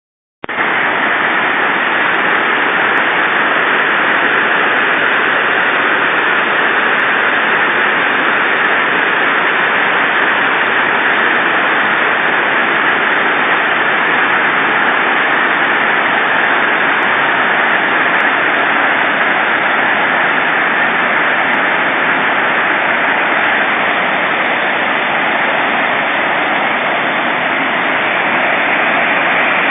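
Ouzel Falls, a mountain waterfall, with its falling water rushing loudly and steadily.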